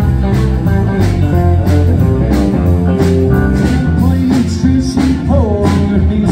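Live country band playing with electric guitars over a steady drum beat, a few bent guitar notes about five seconds in.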